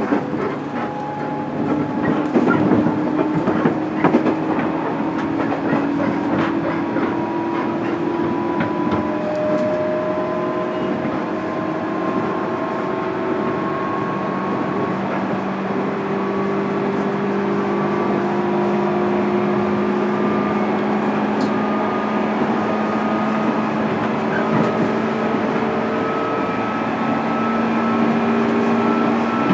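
Inside a JR East 205 series electric motor car, MT61 traction motors and gears whine over the running noise of the wheels, several tones slowly rising in pitch as the train gathers speed. A few sharp clacks over rail joints or points about two to four seconds in.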